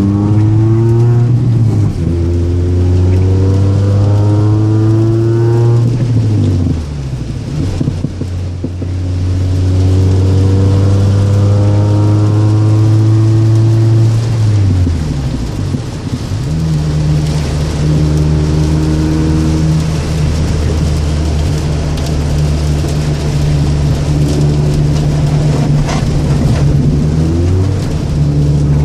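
Toyota Celica's four-cylinder engine through an aftermarket exhaust, driving: the note climbs under throttle, falls away twice, then holds steady for the last ten seconds or so.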